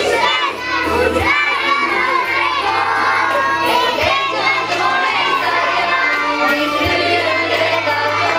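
A group of young children singing and shouting together, loud and unison-ish, over a backing music track with a steady bass line.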